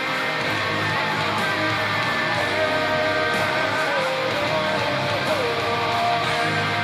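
Heavy metal music: distorted electric guitars playing a sustained lead melody that slides between held notes, over bass and drums.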